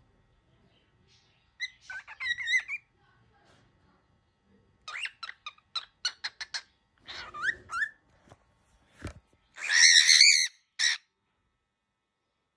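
Young cockatiel, angry, giving harsh squawks and a fast run of short, sharp calls. Its loudest call, a raspy screech, comes about ten seconds in, just after a single knock.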